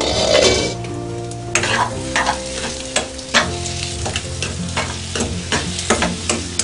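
Egg and ivy gourd fry sizzling in a nonstick frying pan while a spatula stirs it. It starts with a louder burst of sizzle and stirring, then from about a second and a half in there are repeated sharp scrapes and knocks of the spatula against the pan.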